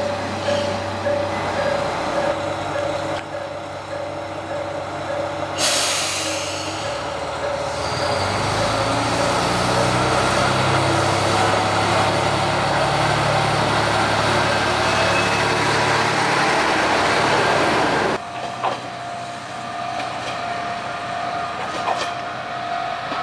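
Kanto Railway KiHa 5000-series diesel railcar idling, then a sudden burst of air hiss from its brakes about five seconds in. After that its diesel engine throttles up and runs loudly under load as it pulls away, rising a little in pitch. Near the end the sound cuts abruptly to a quieter, steady hum.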